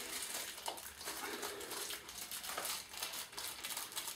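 Faint, irregular rustling and crinkling of hands handling a new seal for the cush drive.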